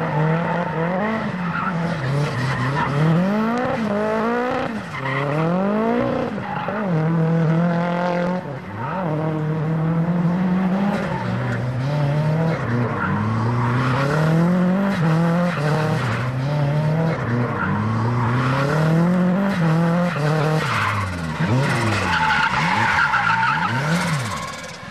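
Drift car's engine revving up and falling back again and again as the car slides sideways, with tyres squealing and skidding on the asphalt.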